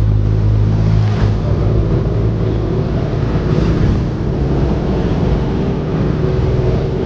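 Vehicle road noise: a steady low rumble with a low engine-like hum and wind on the microphone.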